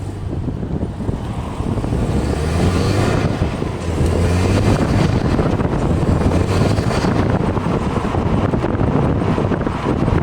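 Car on the move: engine running with road and wind noise, the wind buffeting the microphone. It grows louder over the first two seconds, then holds steady.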